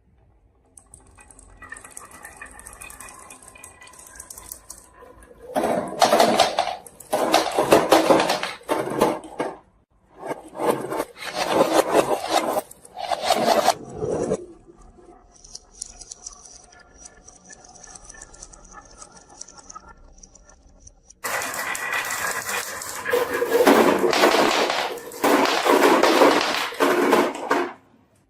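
Marbles rolling and clattering down a wooden marble run, in several long stretches of dense rattling with quieter rolling between.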